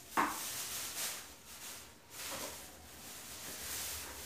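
Plastic shopping bag rustling as groceries are taken out of it, in two stretches with a short pause about two seconds in.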